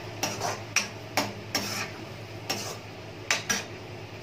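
Metal spoon stirring and scraping masala in a metal kadai, clinking against the pan about eight times at uneven intervals, over a steady low hum.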